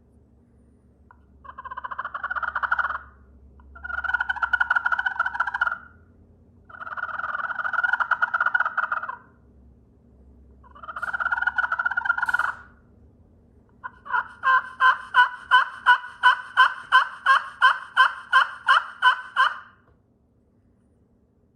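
Vintage slate turkey call worked with a striker, imitating a wild turkey: four long scratchy strokes, then a fast even run of about sixteen short notes near the end.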